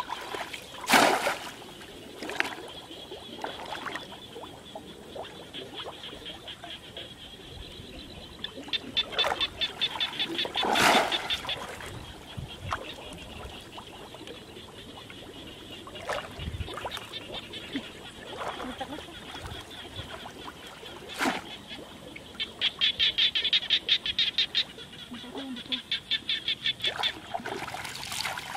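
Water splashing as a person wades in a shallow muddy pond and works a woven bamboo fish trap by hand, with a few louder splashes. Behind it, a rapid pulsing animal call comes in long trains, the longest near the end.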